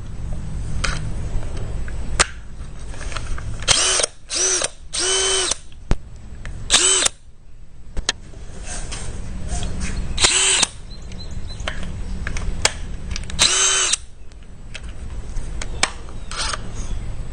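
DeWalt 20V Max brushless cordless power tool running with no load in short trigger pulls, about seven whirs that each rise in pitch as the motor spins up, one near five seconds held a little longer. Handling rumble between the pulls.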